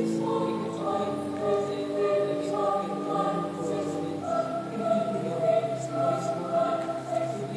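Choral music: voices singing slow, long held chords that move to new pitches every few seconds.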